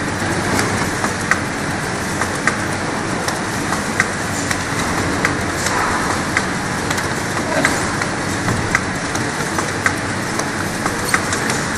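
Automatic bottle labeling machine running: a steady mechanical running noise from the conveyor and label heads, with sharp ticks recurring about every half second to one second.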